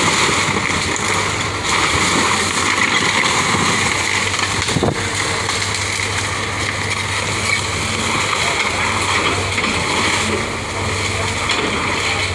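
Cat 313F hydraulic excavator demolishing a wooden house: its diesel engine runs with a steady low drone while the bucket crunches and drags through splintering boards and sheet-metal roofing, with one sharp crack about five seconds in.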